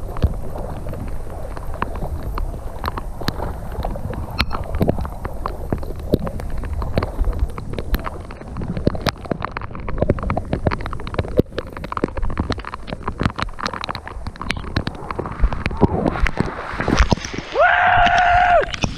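Wind and rain on the camera microphone over floodwater, with water sloshing and gurgling and many sharp taps of drops and splashes. Near the end, a pitched, voice-like call lasts about a second.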